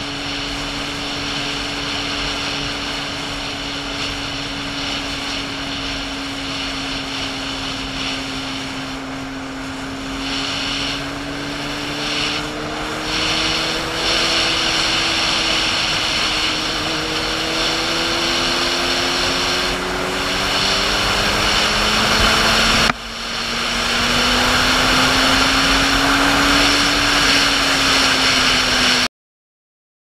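Sport motorcycle engine running as the bike is ridden, heard over wind noise. The engine note climbs slowly and gets louder, drops briefly about three quarters of the way through, then climbs again before cutting off suddenly near the end.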